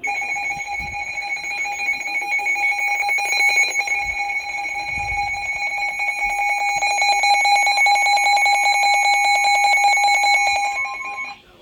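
NOAA Weather Radio Emergency Alert System alert tone: a loud, steady electronic tone held for about eleven seconds, then cutting off.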